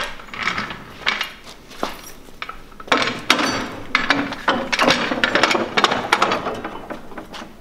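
Metal floor jack clanking and rattling as it is lifted off the floor and set down into a sheet-metal jack holder on the side of a rolling tool cart. A run of knocks and clinks, busiest in the middle.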